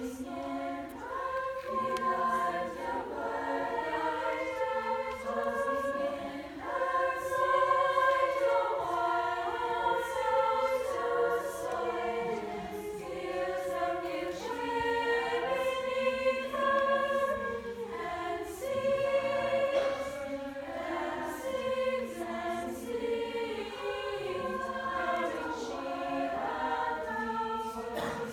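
Choir singing in several voice parts, holding chords that change every second or so.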